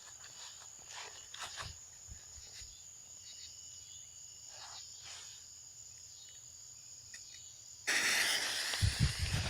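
Insects, likely crickets, trilling steadily at a high pitch, with faint scattered clicks. About eight seconds in, a loud hissing rush starts abruptly, followed by low thumps.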